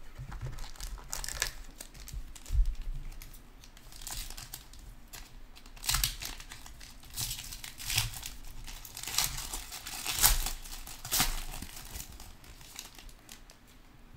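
Foil trading-card pack crinkling in the hands as its wrapper is torn open, in an irregular run of sharp crackles.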